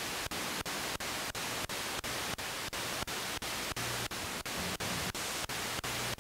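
Spirit box (ghost-box radio) sweeping through stations: a steady hiss of static chopped into short pieces about three times a second, with faint snatches of low tones from passing stations.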